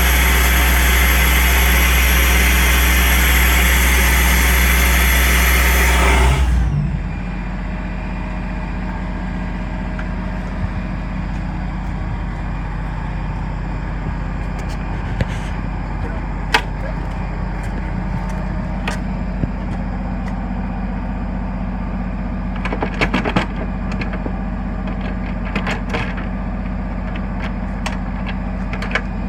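Compact soil vacuum sucking soil and air up its hose with a loud, rushing hiss over a low machine hum. The suction cuts off sharply about six seconds in, and the machine runs on with a steadier low hum. Later come sharp metal clicks and clunks as the latches on its collection bin are undone.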